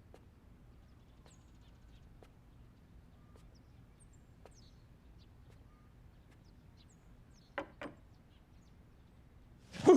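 Quiet background ambience with faint, scattered bird chirps. About seven and a half seconds in come two quick sharp clicks, and just before the end a much louder thump.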